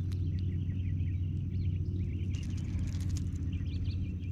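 Small birds chirping over a steady low hum. There is a short burst of rustling a little past halfway.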